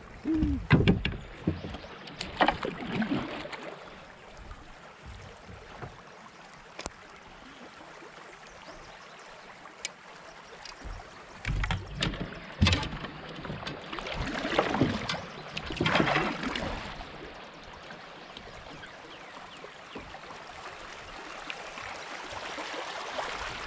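A kayak on a flowing creek: paddle splashes and running water, with occasional sharp knocks. A cluster of louder splashes comes past the middle.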